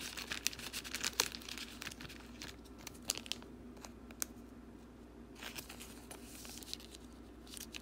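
Thin plastic card sleeve crinkling and crackling as a trading card is worked into it, in two spells: the first few seconds, then again a little past the middle.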